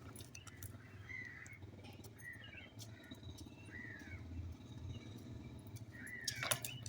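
Faint short bird chirps, each a brief arched note, coming every second or so, with a louder call and a few clicks about six seconds in, over a low steady hum.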